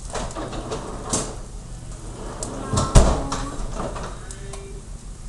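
Kitchen handling noises: scattered knocks and rattles, the loudest a single thump about three seconds in.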